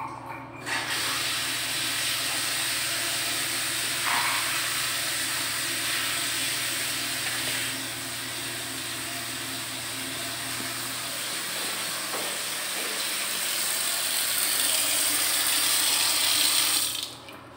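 Water running steadily from a just-repaired lavatory faucet into the basin as the repair is tested. It is turned on just after the start and stops abruptly near the end.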